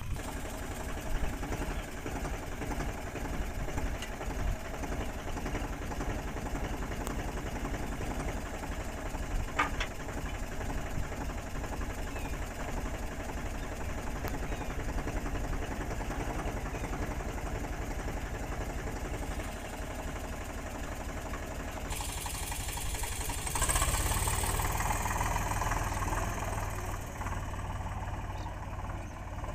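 Eicher 485 tractor's three-cylinder diesel engine running steadily at a low idle, with a single short knock a little before midway. About two-thirds of the way through the engine grows louder.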